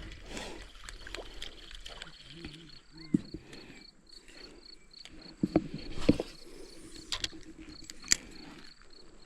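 An insect chirping in an even high pulse, about three chirps a second, starting a few seconds in, with several sharp knocks, the loudest about six seconds in.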